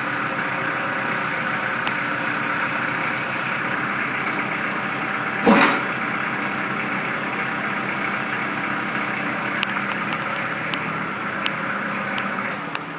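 Kubota L4240 tractor's diesel engine idling steadily, with one brief louder pitched sound about halfway through.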